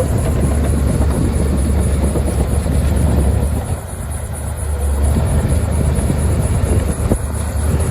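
Heavy earth-moving machine's diesel engine running steadily under load, with a deep low rumble. It eases off briefly near the middle, then picks up again.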